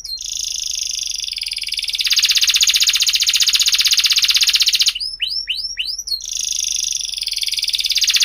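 Domestic canary singing: a long, high, very rapid trill of fast-repeated notes. It grows louder about two seconds in, breaks into four separate swooping notes about five seconds in, then goes back into the trill.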